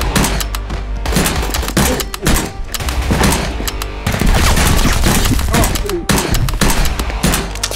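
Rapid, dense volleys of blaster shots, a firefight of Nerf blasters, over a background music track with a steady bass.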